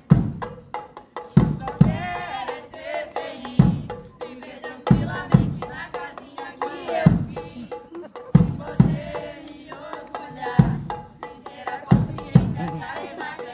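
Upbeat dance music with a strong bass-drum beat, the hits often coming in pairs, under a melody.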